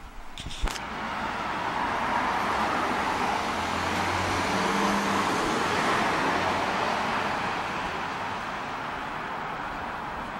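A motor vehicle passing on the street: engine and tyre noise swells, peaks about halfway through and slowly fades. A single sharp click sounds just under a second in.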